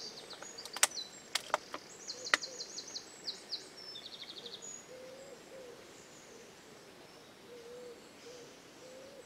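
Woodland birdsong: a small songbird sings fast, high trills for the first four and a half seconds, with several sharp clicks among them, the loudest sounds here. After that a faint, low hooting bird call repeats a few times.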